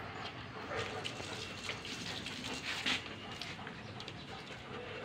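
German Shepherd dogs panting, a breathy rasping noise, with a sharp click about three seconds in.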